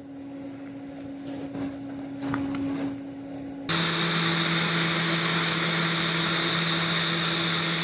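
TIG welding arc on stainless steel pipe striking about three and a half seconds in and then running as a loud, steady buzz with a low hum while a spot tack is made, apparently played back slowed down. Before the arc, only a faint steady hum and a few soft clicks.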